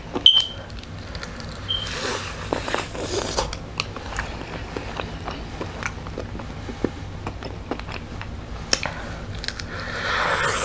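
Close-up mouth sounds of someone biting and chewing crispy air-fried fried chicken: small crunches and wet clicks scattered throughout. Near the end, a louder rush of breath.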